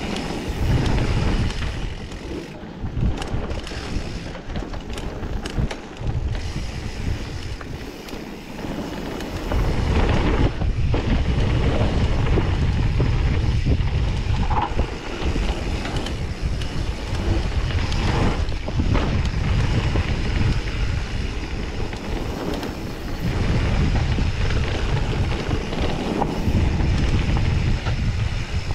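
Wind buffeting the microphone on a mountain bike riding down a dirt flow trail, with the tyres rolling over hard-packed dirt and loose stones and occasional clicks and knocks from the bike. The rumble eases off for a few seconds early in the run and grows louder again from about a third of the way in.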